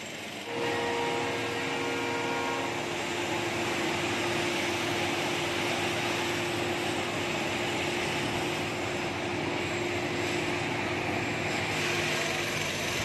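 A railway locomotive at a station: a train horn sounds for about two seconds, then the locomotive runs with a steady whine over a roar.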